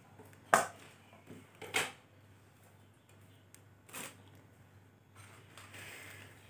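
Small plastic clicks as drinking-straw pieces are handled and pressed together: a sharp click about half a second in, another near two seconds and a third near four seconds, with a soft scrape near the end over a faint steady hum.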